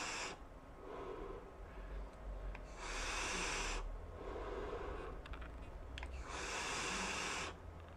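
A person taking long draws on a Damn Vape Doom mesh RTA vape tank and blowing out the vapour. Three breathy rushes about a second long come roughly three seconds apart, with softer breaths between them.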